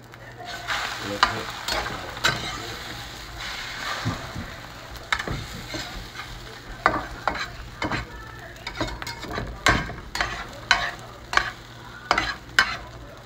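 Beaten eggs with onion and cheese sizzling in a nonstick frying pan, while a metal spatula scrapes, turns and taps against the pan in short strokes. The scraping and tapping comes more often in the second half.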